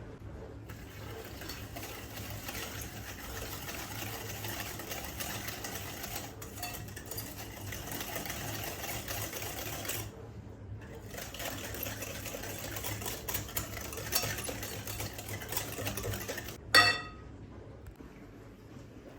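A small electric kitchen mixer running steadily, stopping briefly twice. Near the end there is one short, loud, ringing clink or beep.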